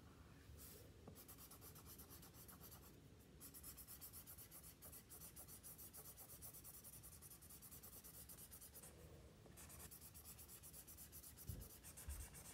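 Felt-tip marker scribbling rapidly back and forth on paper, colouring in a large area in faint, quick strokes, with two short pauses.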